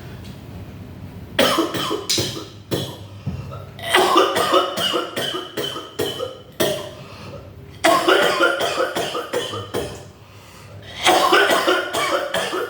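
A person coughing hard in repeated fits: about five bouts of harsh, rapid coughs a few seconds apart.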